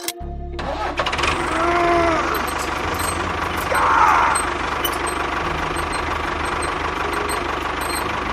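A small motor-driven machine running steadily with a fast rattle, with brief squeals about two and four seconds in.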